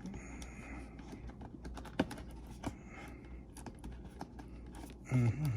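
A cardboard figure box being cut open with a knife and handled: scattered clicks and taps with short scrapes, and one sharp click about two seconds in.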